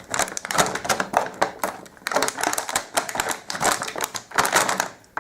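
Rapid, irregular clicking and clattering of plastic Play-Doh toy pieces being handled.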